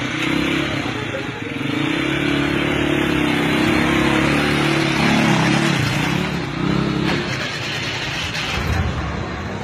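Motorcycle engine running close by as it rides past, its pitch wavering up and down, then dropping away about seven seconds in, over steady street traffic noise.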